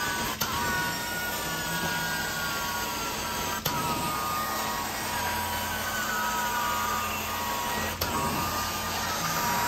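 Steady rush of suction from a truck-mounted hot-water extraction carpet-cleaning wand being drawn across carpet, with high whistling tones that shift in pitch as the airflow changes. Three sharp clicks, each after a brief dip in the sound, mark the wand being lifted and reset between strokes.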